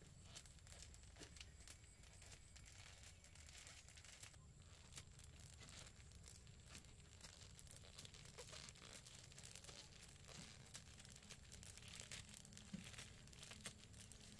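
Near silence: a faint steady hum with scattered soft crackles.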